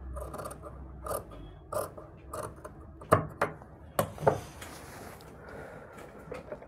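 Scissors snipping cloth: a run of irregular sharp clicks, with a soft rustle of fabric being moved about halfway through, as a kameez neckline is trimmed level.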